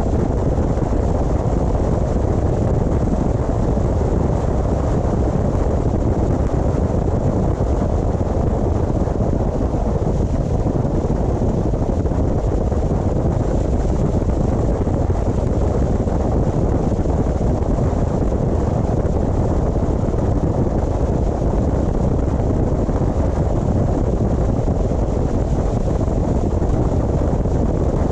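A car driving steadily along the road: a constant low rumble of tyre and wind noise.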